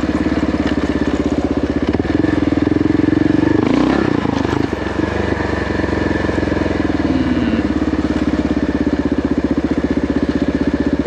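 Kawasaki KLR650's 651 cc single-cylinder four-stroke engine running at low, fairly steady revs, with a brief noisy burst about four seconds in.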